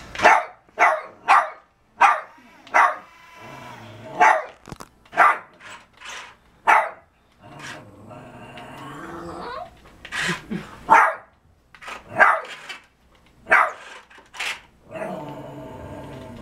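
Small dog barking at a toy tank, in quick single barks over and over.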